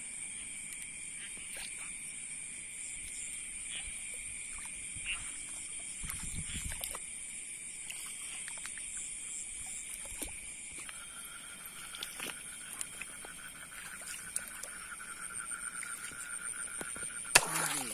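Night chorus of insects and frogs in a flooded rice paddy: steady high-pitched trilling, with a lower pulsing trill joining about two-thirds of the way through. Soft wading sounds in the shallow water, and one sudden sharp sound near the end.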